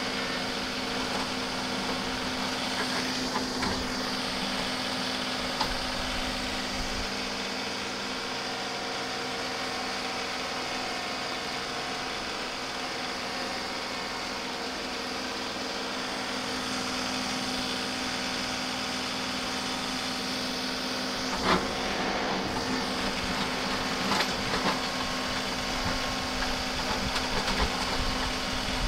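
John Deere compact tractor's three-cylinder diesel engine running steadily while it pulls a rear box blade that scrapes across the barnyard ground. A couple of short knocks come about three-quarters of the way through.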